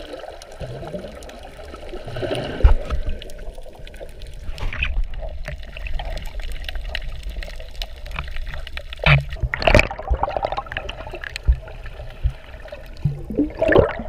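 Water heard from underwater: muffled sloshing and gurgling with scattered clicks, and louder gushes of water around nine to ten seconds in and again near the end.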